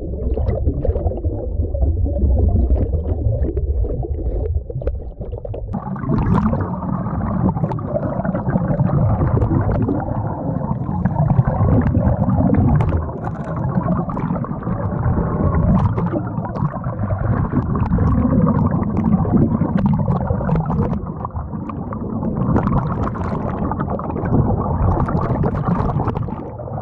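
Muffled underwater rumble of churning water and air bubbles, heard through a submerged camera. About six seconds in it turns brighter and fuller and stays that way.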